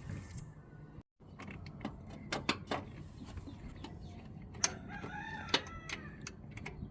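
A rooster crows once, a drawn-out call about five seconds in, over scattered sharp metallic clicks and taps of hand tools working on the alternator bolt.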